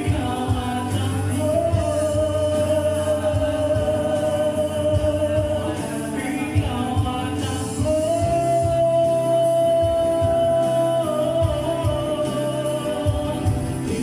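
Live band music: male voices singing over keyboard and acoustic guitar, with two long held notes, one in the first half and one in the second.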